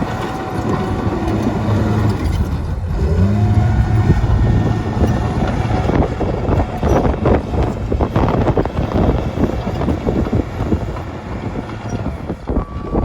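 Komatsu D51PX-22 crawler dozer working and pushing dirt: the diesel engine pulls under load, its pitch rising twice in the first few seconds, with a dense clatter of knocks through the second half.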